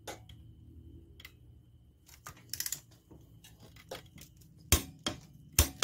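Light metal clicks and clinks from handling parts and tools at an ATV's clutch basket, ending in two sharp knocks about a second apart.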